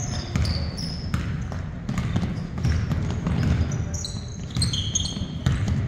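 Basketball dribbled on a hardwood gym floor, bouncing over and over, with short sneaker squeaks on the court.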